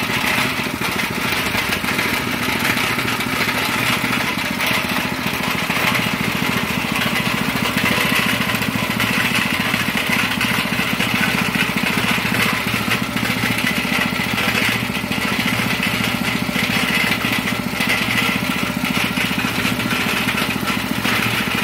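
Predator 212cc single-cylinder four-stroke gas engine on a cement mixer, running steadily at an even speed.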